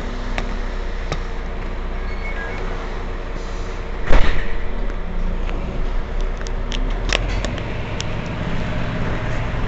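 Mercedes-Benz Citaro C2 Euro 6 city bus engine idling steadily. About four seconds in, a sudden loud burst of noise lasts about half a second, followed a few seconds later by several sharp clicks.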